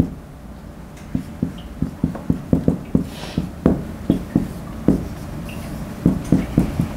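Marker writing on a whiteboard: an irregular run of short taps as the pen strikes the board stroke by stroke, with a few faint squeaks and a brief scrape.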